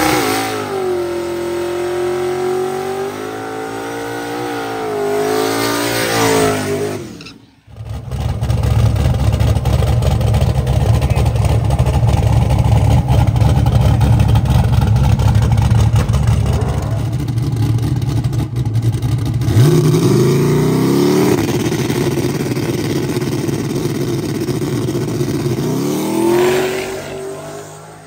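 Drag car engine revving with its pitch rising and falling, then after a sudden break a loud full-throttle run, the engine pitch climbing steeply twice as it pulls.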